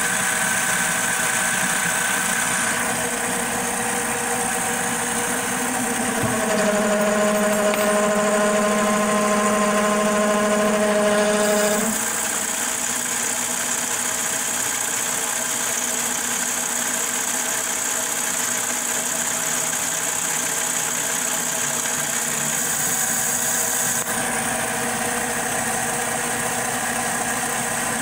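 Logan 12-inch lathe, converted to CNC, running and taking a turning pass on a pulley blank, the tool shaving off chips. A set of steady tones rises out of the cutting noise about six seconds in and stops about twelve seconds in, when it is slightly louder.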